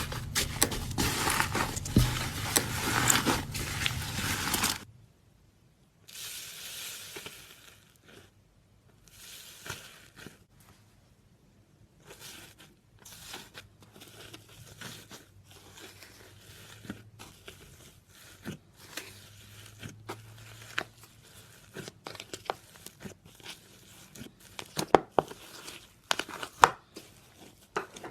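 Iceberg slime's dried crust crackling and crunching as it is pressed and broken, dense and loud for the first five seconds, then stopping abruptly. After that come quieter, scattered crackles and clicks, with a few sharper cracks near the end.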